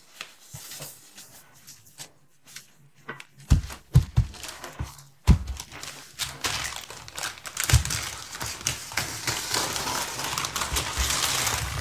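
Plastic mailer bag crinkling and rustling as hands handle it, with a few knocks from the parcel between about three and a half and five and a half seconds in. From about six seconds the crinkling becomes dense and steady as the plastic is pulled and cut open with scissors.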